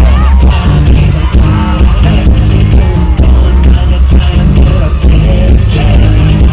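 Live K-pop performance: the group singing over a loud backing track with a heavy bass beat.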